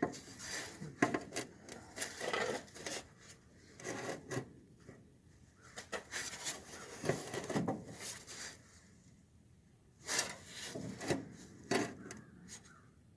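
Irregular scraping and knocking as a used 1967 Dodge Dart radiator is shifted and rubbed against the radiator support of a 1966 Dart, with a short quieter pause about two-thirds of the way through; the radiator's mounting brackets do not line up with the chassis.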